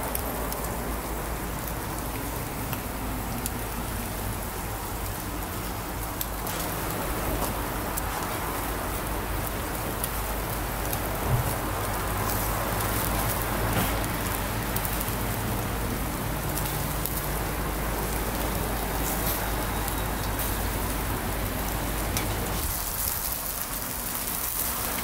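Pork barbecue skewers sizzling on a grill: a dense, steady crackle with many small pops as the fat spits.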